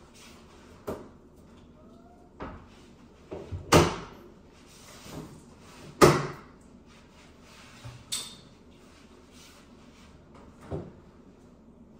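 Hard plastic-and-metal clunks and knocks, about six of them with gaps between, the loudest two about four and six seconds in, from a Samsung TV and its Slim Fit wall-mount hardware being handled and fitted on the wall.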